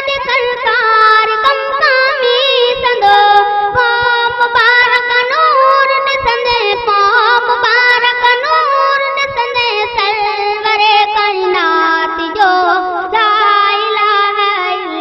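A boy singing a Sindhi hamd (devotional praise song) over a musical backing. He holds long, ornamented notes that slide between pitches, without clear words.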